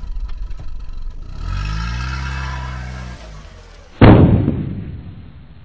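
Intro sound effects: an engine revving up and back down, then about four seconds in a sudden loud boom, an explosion effect, that dies away over a second or two.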